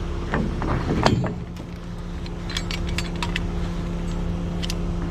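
An engine idling steadily, with scattered metallic clinks and rattles of tie-down chain being handled and hooked, a cluster about a second in and another a couple of seconds later.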